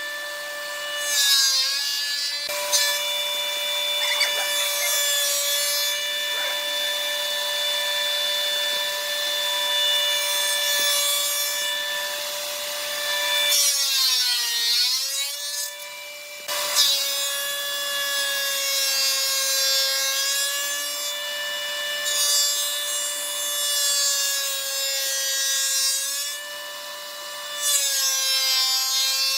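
Electric power saw running with a steady high whine. Several times its pitch sags and a hissing cutting noise rises as it bites into the wood, most deeply about halfway through.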